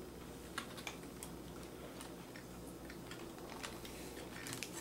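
Scattered small, light clicks and taps of hands and a small screwdriver working at a plastic connector on a laptop motherboard, over a faint low hum.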